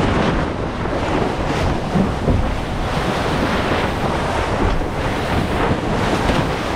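Strong wind buffeting an action-camera microphone, with water rushing and splashing along a sailboat's hull under way.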